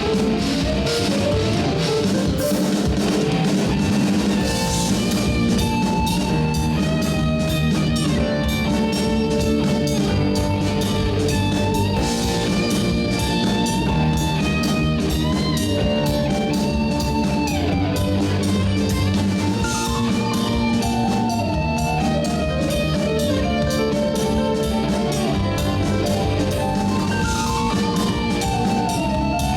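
A rock band playing live: electric guitars run melodic lines over a steadily driving drum kit with cymbals.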